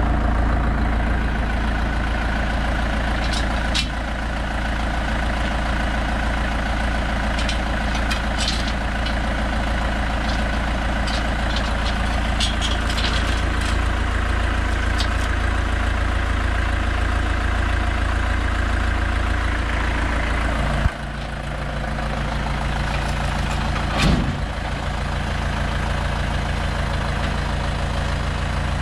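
Compact tractor's diesel engine running steadily, with light metallic clinks. About 21 seconds in the engine note drops sharply and settles at a new steady pitch, and a single clank follows a few seconds later.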